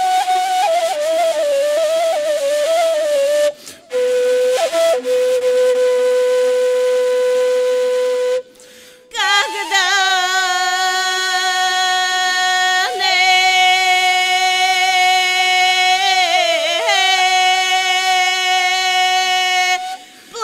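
A solo wind instrument with a flute-like tone playing a slow melody of long held notes, broken by a few short pauses.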